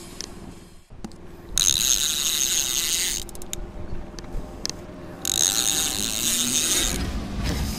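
Fishing reel drag screaming as a hooked fish pulls line off the spool, in two runs of about a second and a half each with a short pause between.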